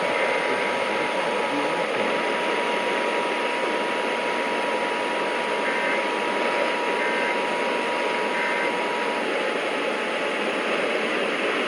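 Heavy radio static hiss from a weakly received broadcast, with a faint steady tone that stops about nine seconds in. Under the hiss, three faint short two-tone data bursts about a second apart, like the Emergency Alert System's end-of-message code.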